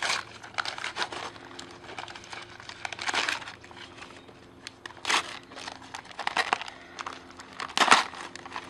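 Packaging crinkling and rustling as a parcel is opened and handled, with louder bursts of crackling about three, five, six and a half and eight seconds in, over a faint steady hum.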